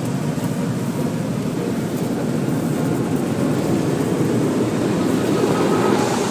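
Car wash air dryer blowers running, a loud steady rushing noise heard from inside the car, growing a little louder near the end.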